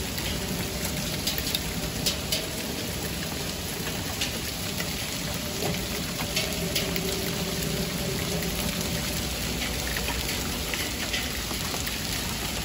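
Pea-sized hail falling steadily on grass and pavement: a constant hiss with scattered sharp ticks of single hailstones striking, the loudest about two seconds in.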